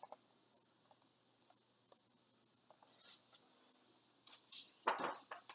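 Pages of a large picture book being turned by hand. After a quiet start, paper rustles and slides for about a second, then come a few crisp page flaps and a sharper knock of the book near the end.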